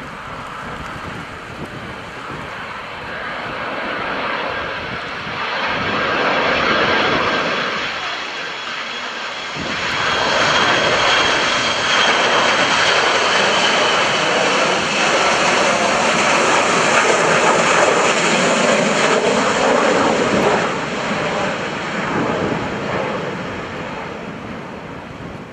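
Boeing 737-200 on final approach with its gear down, its Pratt & Whitney JT8D low-bypass turbofans giving a steady jet noise with a faint high whine. It grows louder about ten seconds in as the plane comes closer, holds, then fades toward the end.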